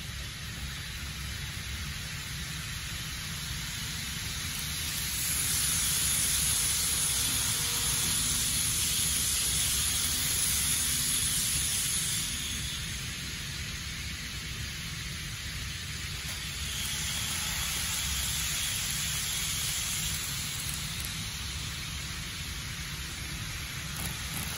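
N gauge model trains running on the layout track: a steady hissing rolling noise of wheels and motor. It grows louder as a TOMIX 500 series Nozomi model approaches and drops off suddenly as it passes, about halfway through. It swells again for a few seconds later.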